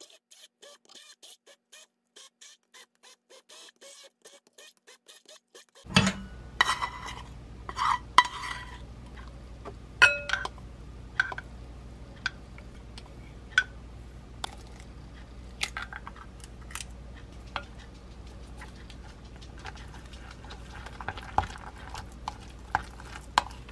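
A hand blender purées potato and shrimp in a glass bowl, heard as a faint rapid pulsing of about four beats a second. About six seconds in, ingredients are tipped into the glass bowl with sharp clinks and knocks against the glass. After that a utensil stirs and scrapes the mixture, with scattered taps on the bowl.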